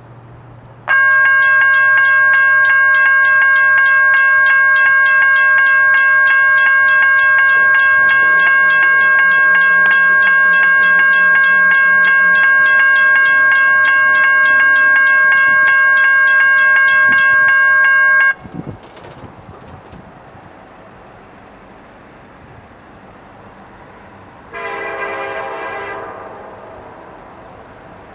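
CSX SD70M diesel locomotive's air horn sounding one long, loud chord for about 17 seconds that cuts off suddenly, then one short blast of about a second and a half near the end, over the low rumble of the approaching freight train.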